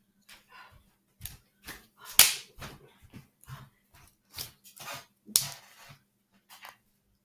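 Close handling noises: a dozen or so short, irregular rustles and taps, the loudest about two seconds in and another near five and a half seconds.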